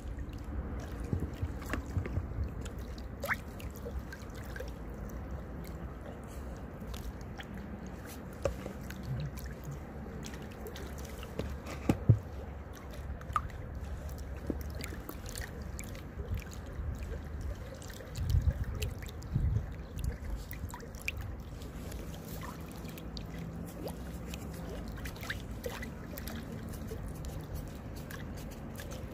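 Small waves lapping and dripping against branches at the water's edge, with scattered small clicks and splashes. There is a sharp knock about twelve seconds in and a few low thuds later on.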